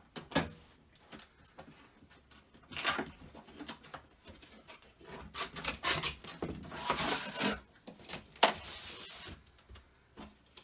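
Large cardboard box being opened by hand: flaps pulled apart, with cardboard rubbing and scraping in irregular bursts. A sharp snap comes just after the start and another about eight seconds in.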